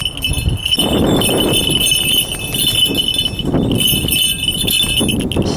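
A falconry bell on a hawk ringing almost without pause in one high tone, breaking off briefly now and then, over wind buffeting the microphone.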